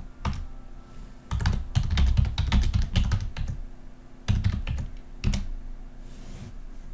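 Typing on a computer keyboard: a dense run of keystrokes lasting about two seconds, then a short burst and a few single key presses.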